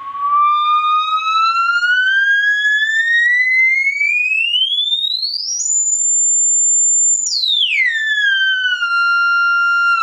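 The filter of a prototype Graphic Fuzz–style fuzz pedal self-oscillating through a guitar amp: a whistling tone that rises steadily in pitch as the filter knob is turned up, holds at a high whistle for about a second and a half, then drops quickly and settles at a lower pitch near the end. This is the filter's self-oscillation, the fault that the builder's added damper control is meant to cancel.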